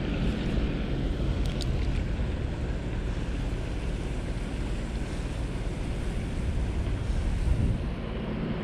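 Wind buffeting the microphone over a steady rush of water spilling from a culvert outflow into a ditch. A couple of faint clicks come about a second and a half in.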